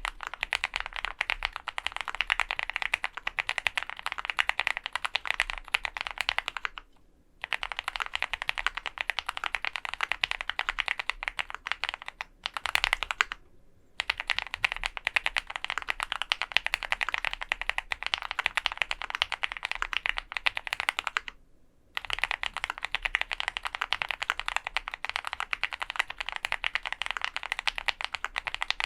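Fast continuous typing on an OwLab Mr. Suit mechanical keyboard with lubed Gateron milky yellow pro linear switches on an aluminium plate, GMK keycaps, the case damped with foam. Dense keystroke clacks in long runs, broken by a few short pauses.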